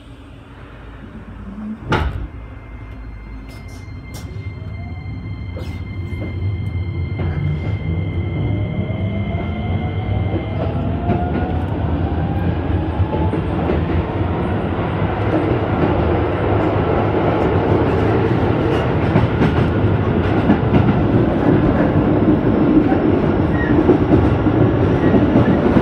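Keisei 3000-series electric train pulling away from a station, heard inside the car: a thump about two seconds in, then the traction motors' whine, steady at first and then rising in pitch as the train speeds up. The running noise of the wheels grows steadily louder, with clicks over the rail joints.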